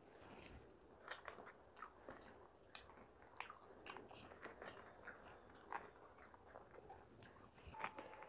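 A person chewing food with many short, irregular wet mouth clicks and smacks, and a crisp masala dosa crackling as it is torn apart by hand. The loudest click comes near the end.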